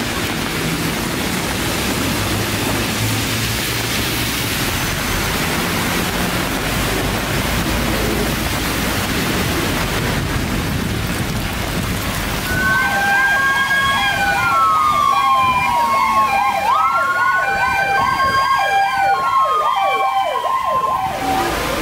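Steady rain hiss, then about two-thirds of the way through an emergency vehicle siren sounds: a slow wail that falls and rises again, layered with a fast warbling yelp and a two-note hi-lo pattern. The siren cuts off suddenly just before the end.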